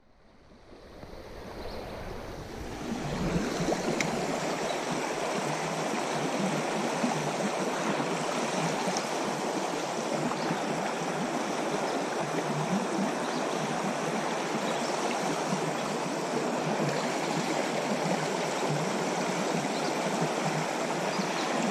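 Shallow creek water running over a riffle, a steady rush that fades in over the first couple of seconds.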